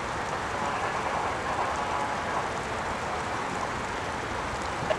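Loaded coal hopper cars rolling steadily over a steel girder railroad overpass, mixed with the even hiss of light rain.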